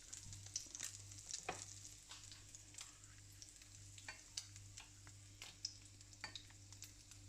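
Trout fillets frying in butter and olive oil in a pan, a faint steady sizzle with scattered crackling pops.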